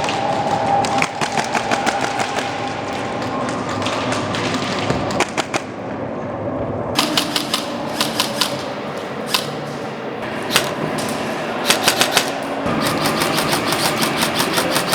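Airsoft electric guns firing in rapid bursts of sharp clicks, several strokes a second, repeated throughout with short pauses between bursts.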